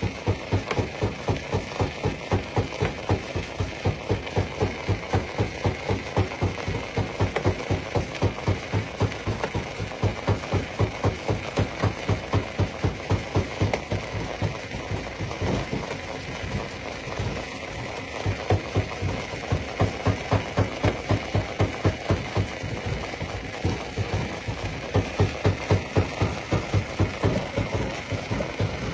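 Jaw-type stone crusher running and crushing rock, with a steady rhythmic pounding of about three beats a second.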